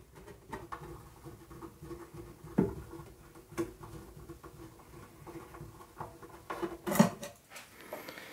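Small hand screwdriver turning a screw out of a metal chassis panel: faint scratching and clicking of the tip in the screw head, with a few light knocks.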